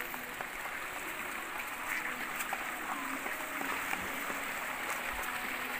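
Shallow stream running over rocks: a steady rush of water, with a few faint ticks.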